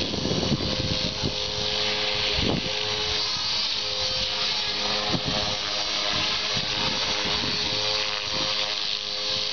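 ALZRC Devil 480 HV electric RC helicopter in flight: a steady high-pitched motor and rotor whine with the rush of the spinning blades.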